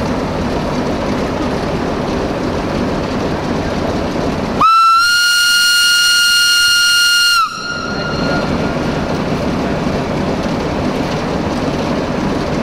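A railway locomotive's whistle sounds one steady high note for about three seconds, starting a little under halfway through and cutting off abruptly, over a steady background rumble.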